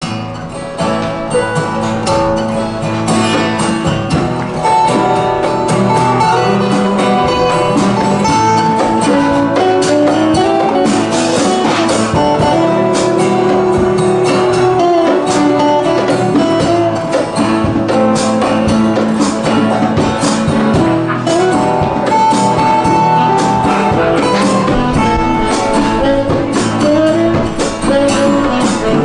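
Acoustic band playing the instrumental introduction of a folk-rock song: strummed guitar and percussion keeping a steady beat, with a melodic lead line sliding between held notes above them.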